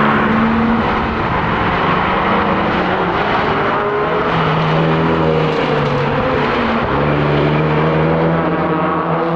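Renault Megane RS 250's turbocharged four-cylinder engine under hard acceleration. Its pitch climbs and drops back at gear changes several times, over steady road and wind noise.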